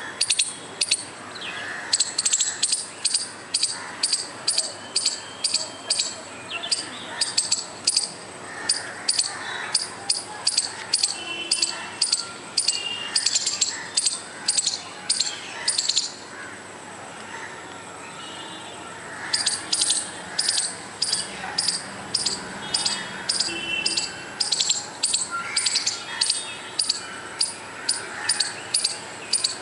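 Squirrel calling, a long run of short, sharp high-pitched chirps at about two to three a second, pausing for a few seconds midway and then starting again.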